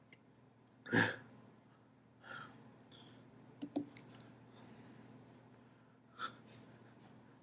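A man's throat and breath sounds while he drinks soda and holds back burps: a sharp hiccup-like catch about a second in, then softer breaths and a few small clicks.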